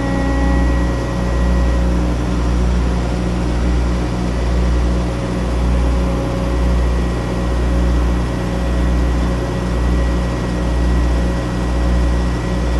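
Diesel engine running steadily, a low drone that swells and fades in a slow regular beat about once a second.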